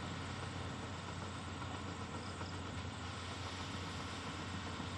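Heavy-equipment diesel engine idling steadily: a low, even hum under a constant hiss.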